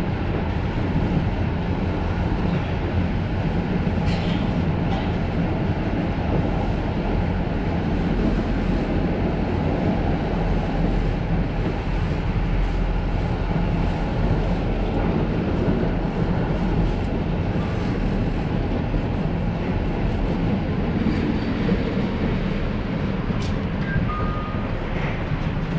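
Steady rumble of a moving tram heard from inside the car: wheels on the rails and running gear, with a few faint ticks.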